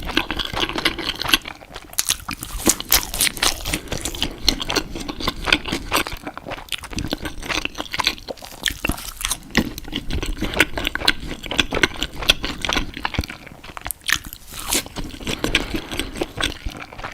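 Close-miked eating: crispy fried chicken nuggets bitten and chewed, a dense, irregular run of crunches and chewing.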